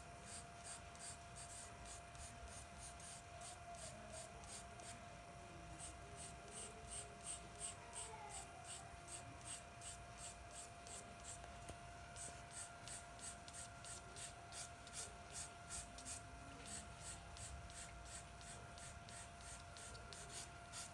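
Charcoal pencil scratching on drawing paper in short, even strokes, about three a second, as strands of hair are shaded in. A faint steady hum runs underneath.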